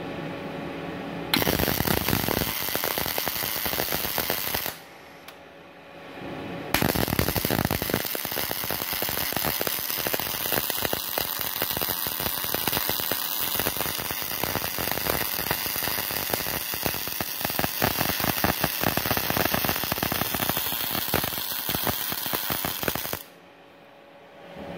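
CO2-shielded MIG welding arc from a Multipro MIG-MAG 250NF with an external wire feeder, crackling steadily. A short weld of about three seconds is followed by a pause of about two seconds, then a long bead of about sixteen seconds that cuts off near the end.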